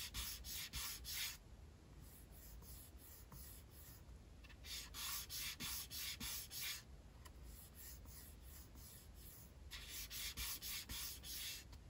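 Fingertip rubbing back and forth across the plastic finish of a Razer Huntsman Quartz Edition keyboard's case: a dry, scratchy rub of the textured surface. It comes in three bouts of quick strokes, about four a second, each bout lasting about two seconds.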